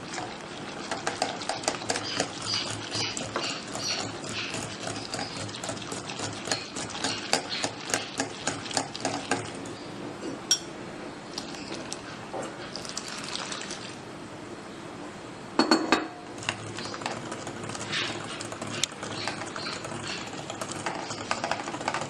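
Yogurt and milk being whisked by hand in a container: fast, repeated clicking strokes of the utensil against the sides, with liquid sloshing, easing off in the middle and picking up again. One louder clatter about two-thirds of the way through.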